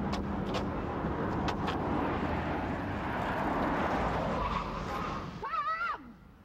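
Street traffic noise as a car drives along the road, with a few faint clicks. About five and a half seconds in comes a short squeal that rises and falls, and then the traffic noise drops away.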